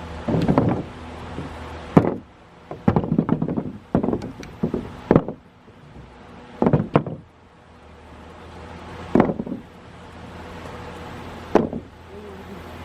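Irregular wooden knocks and bangs from construction work: about ten sharp impacts, some in quick clusters and others a few seconds apart, over a low steady hum.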